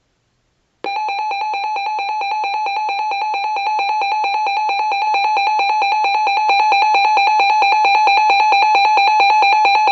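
A weather alert radio's electronic alarm goes off about a second in: a loud, rapidly pulsing beep tone that holds steadily, sounding on receipt of a severe thunderstorm warning.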